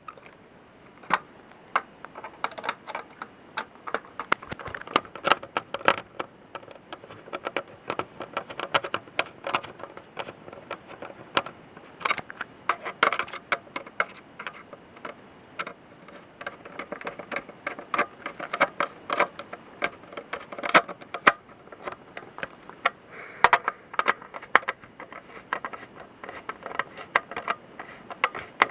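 A smoke detector being handled and worked by hand: irregular clicks, taps and light scrapes of its housing and parts, some in quick clusters. No alarm sounds.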